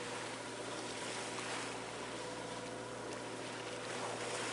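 Wind and water rushing steadily past a sailboat underway, with a faint steady hum underneath.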